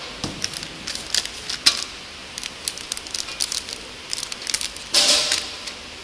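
Clear plastic flow-wrap film crinkling and crackling in irregular bursts as a hand handles the wrapped packs, with the loudest crackle about five seconds in, over steady background noise.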